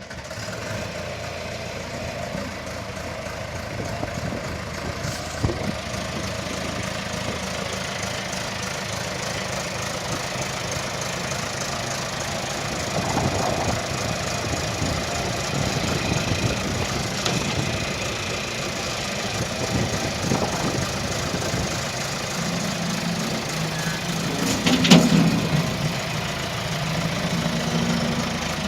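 310A backhoe's engine running steadily at idle. Near the end its note rises and grows louder for a few seconds, peaking about 25 seconds in.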